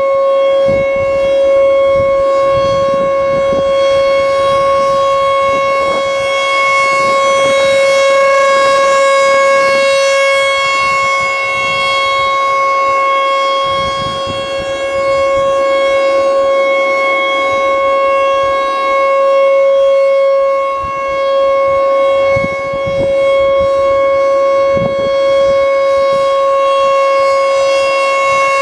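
American Signal Corporation T-128 outdoor warning siren sounding its Full Alert signal: one loud, steady tone held at a constant pitch, its volume swelling and dipping slightly as it sounds.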